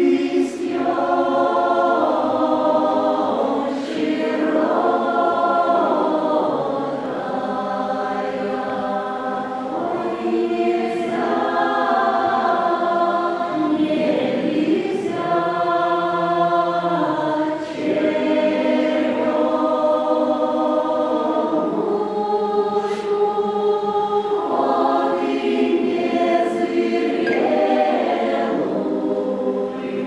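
Mixed Russian folk choir singing a cappella in many-voiced harmony, with long held notes in slow phrases.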